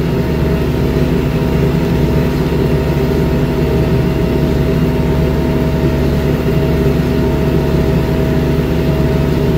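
New Holland TS6020 tractor's diesel engine running steadily under load while pulling a corn planter, heard from inside the cab: an even drone with a constant tone over it.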